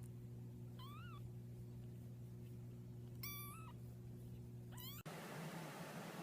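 Cat meowing three times, short high calls that rise and fall in pitch, over a steady low hum. The hum gives way to a steady hiss near the end.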